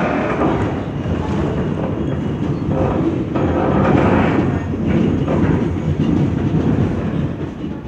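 Inside an R160 New York subway car under way: the steady running noise of steel wheels on the rails, with a light clickety-clack over the track.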